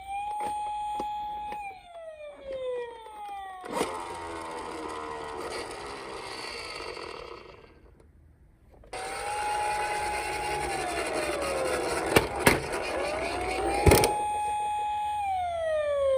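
Electronic toy police car siren wailing, each wail rising, holding and falling, while toy cars roll down a slope with a rushing rattle. The rolling stops briefly about halfway and starts again, and a few sharp knocks come near the end.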